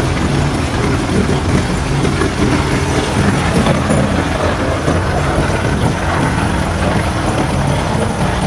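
Heavy road-construction machinery, such as an asphalt paver, running steadily with a constant engine drone and mechanical noise.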